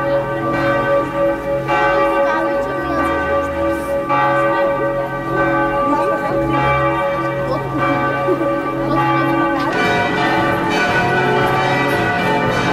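Church bells of the Weizberg church ringing in a full peal, several bells sounding together with overlapping strikes; the blend of bells shifts about ten seconds in.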